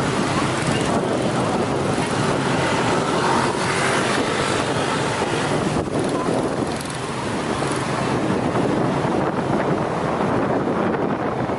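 Steady rush of wind on the microphone mixed with the motorbike's engine and surrounding motor-scooter traffic, heard from the back of a moving motorbike taxi.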